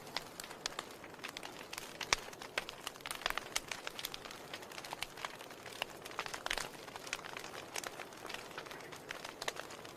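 Wood fire crackling in a fireplace: irregular sharp pops and snaps over a soft hiss, the sharpest pop about two seconds in.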